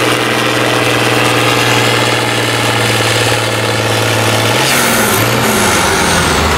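Turbocharged diesel engine of an International Harvester Farmall tractor running steadily under heavy load while pulling a weight-transfer sled. About four and a half seconds in, its note drops lower and rougher as the pull comes to an end.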